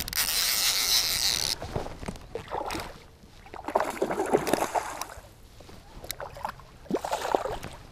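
Fly reel's ratchet drag buzzing as a hooked rainbow trout takes line, cutting off sharply about a second and a half in. Then splashing in the water as the fish fights close in.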